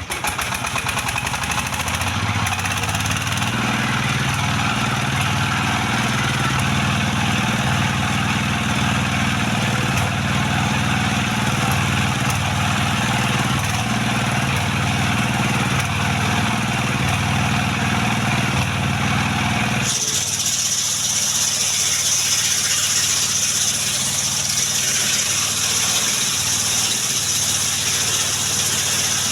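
Sawmill running while cutting coconut wood into beams: a steady machine note under a broad saw noise. About two-thirds of the way through the low note drops away and a higher steady whine takes over.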